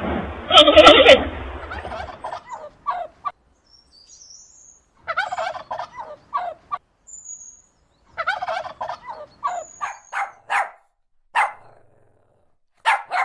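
Turkeys gobbling: several bursts of quick rattling calls from about two seconds in, with a few faint high chirps between them. A louder call in the first second or so comes from a different clip.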